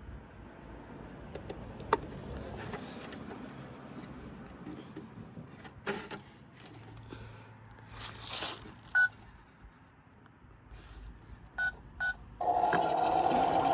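Toy washing machine being handled, with scattered clicks and knocks, then two short electronic beeps. Just after the beeps a loud steady hum starts, the toy running, and it is the loudest part.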